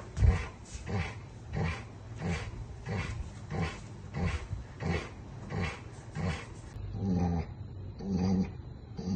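Golden retriever sick with a tick-borne disease, giving a short voiced groan with each laboured breath, about one and a half a second. Near the end the groans become longer and slower, about one a second.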